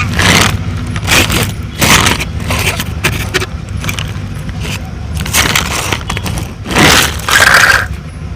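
A vehicle engine hums steadily, with several short, harsh scraping or crunching noises over it.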